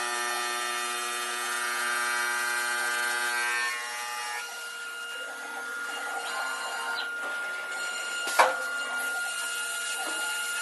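CNC stone bridge saw running, its motors giving a steady multi-tone whine that drops away about four seconds in. After that a quieter single steady tone goes on, with one sharp click near the end.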